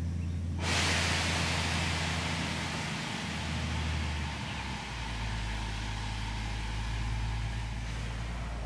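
A steady low engine hum whose pitch shifts around the middle, under a loud hiss that starts suddenly about a second in and slowly fades.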